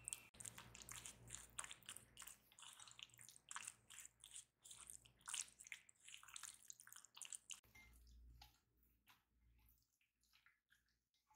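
Faint wet squelches and light scrapes of raw chicken pieces being stirred with a spatula in a glass bowl of lemon juice and spices. The sounds come quick and close together, then grow sparser for the last few seconds.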